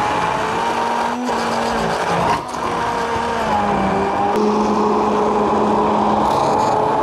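SilverCrest hand-held immersion blender running continuously, blending oat pancake batter in a plastic jug. Its motor whine wavers slightly in pitch as the blade works through the mixture.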